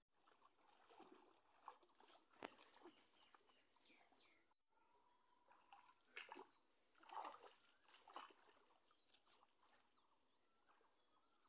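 Faint, irregular splashing and sloshing of hands groping through shallow pond water.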